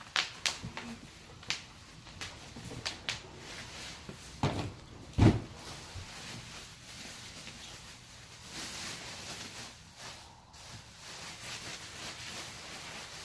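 Spinning-wheel parts being handled and lifted out of a shipping box: scattered clicks and knocks, two heavier thumps about four and five seconds in, then a few seconds of soft rustling.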